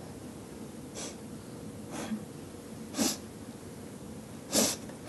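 A person's short audible breaths, four quick puffs about a second apart, growing louder, the last and loudest near the end.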